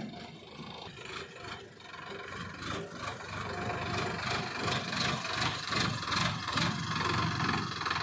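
Diesel engines of a Sonalika tractor and a JCB backhoe loader running, louder from about three seconds in, with a run of sharp clicks through the middle.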